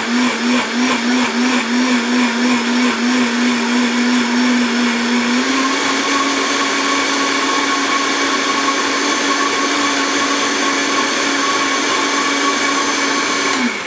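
Countertop blender pureeing hot cooked tomatoes, onion and banana pepper. The motor's pitch wavers for the first five seconds or so, then steps up slightly and runs steady until it stops near the end.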